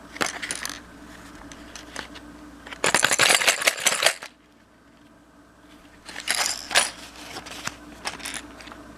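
Lipless crankbaits in their plastic package being handled: scattered clicks, then a dense burst of rapid clicking and clattering about three seconds in and a shorter one around six seconds.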